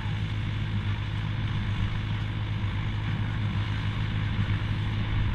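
David Brown 990 tractor's diesel engine running steadily under load while driving a McCormick IH F5-91 baler, a constant low drone with the baler's machinery noise mixed in.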